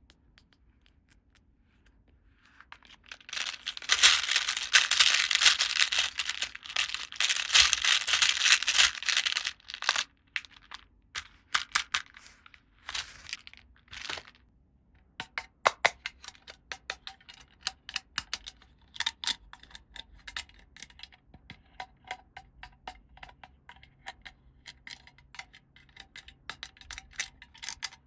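Plastic toy packaging crinkling and tearing as it is opened for several seconds, then many small sharp clicks and taps of small plastic toy pieces being handled and set down.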